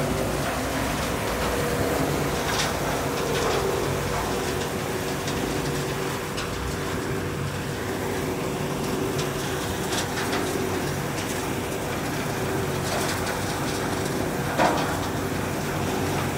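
Bandit Pronar PT-7 compost screener running steadily: a diesel drone with a steady whine over it. A few light clicks, and one sharp knock near the end.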